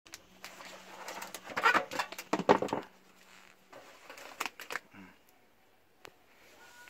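Thin black plastic seedling cell tray crackling and clicking as it is handled and pulled from its outer tray, in a dense cluster of crackles from about one and a half to three seconds in, then a few more clicks.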